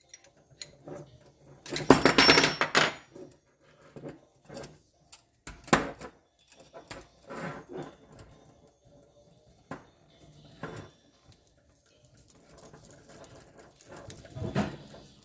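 Hand work with wrenches and brass air-hose fittings on a workbench: scattered clinks and knocks of metal tools and fittings, with a louder burst of rapid clicking about two seconds in.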